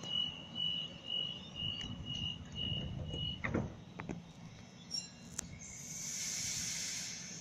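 Door-closing warning beeps of a Sydney Trains Waratah electric train: a high beep repeating about twice a second, stopping a little over three seconds in as the doors shut with a thud. A few clicks follow, then a hiss near the end.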